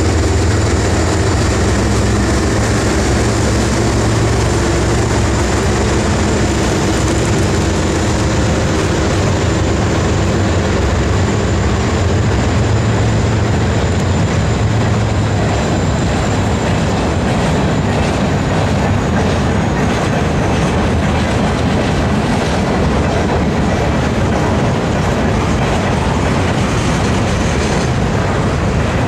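Double-stack intermodal freight train passing close by. The diesel locomotives' low engine drone and a high steady whine fade away over the first half or so, leaving the container cars rolling by with a continuous rumble and clatter of wheels on rail.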